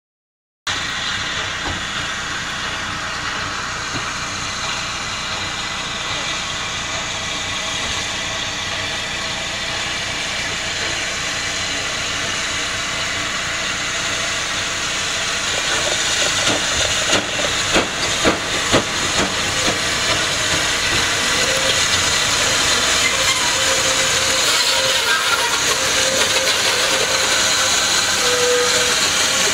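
USATC S160 2-8-0 steam locomotive No. 6046 working towards the listener: a steady hiss of steam and exhaust that starts suddenly about a second in and grows louder in the second half as the engine draws near, with a few sharper beats around the middle.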